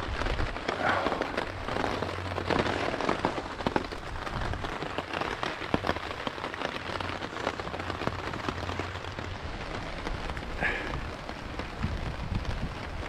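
Rain pattering steadily on a tarp overhead, a dense mass of small drop ticks, with a low wind rumble underneath.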